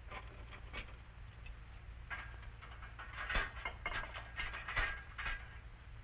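Light clinks and clatters of china and glassware in a top-loading dishwasher's wire racks, thickest from about two seconds in. Under them runs a steady low hum from the old film soundtrack.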